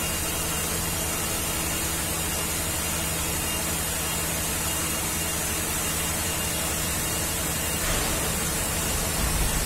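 Neway PM30120MS gantry machining center milling along the edge of a long metal part: a steady cutting hiss over a low hum from the spindle, getting a little louder near the end.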